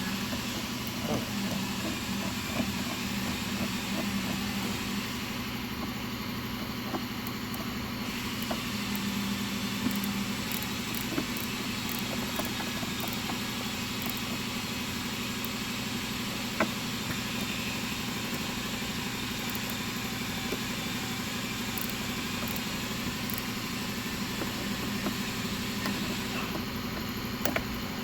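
Steady mechanical hum of workshop background noise, with occasional light clicks and taps from a nut driver working a screw out of a plastic heater box.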